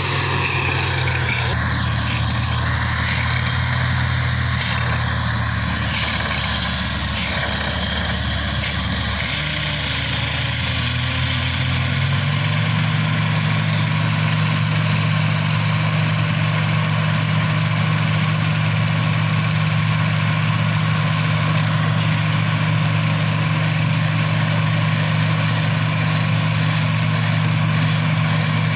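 Diesel engine of a borewell drilling rig running steadily with a low drone, stepping up in speed about twelve seconds in and holding there.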